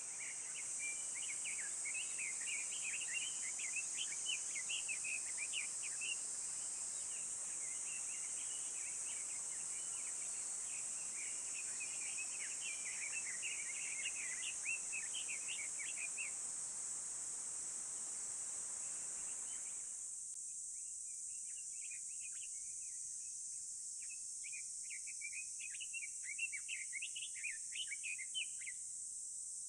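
Woodland ambience: a songbird singing long runs of quick, jagged notes over a steady high insect drone. The low background hiss drops away suddenly about two-thirds of the way through, as at an edit, and the bird song starts again soon after.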